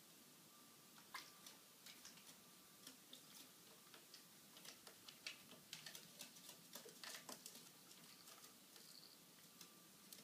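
Near silence broken by faint, irregular small taps and scratches from a superb parrot moving about among branches on a wooden shelf, most frequent about halfway through.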